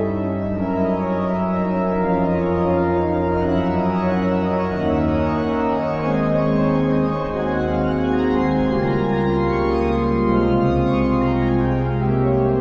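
W. Sauer pipe organ playing a chorale fantasia: full, sustained chords over a deep bass line, the harmony shifting every second or so.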